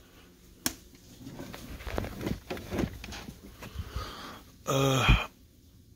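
Light knocks, taps and rustling as an electric skateboard is handled and turned over, with a sharp click under a second in. About five seconds in, a man gives a short low hum.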